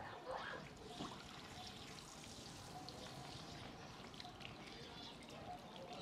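Faint trickle of water running from a hose onto a wet concrete floor, with a couple of faint knocks in the first second.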